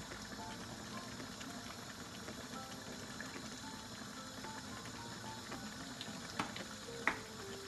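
Tomatoes and onions simmering in a frying pan with a steady sizzle, under soft background music, a simple melody of single notes. Two sharp knocks come near the end.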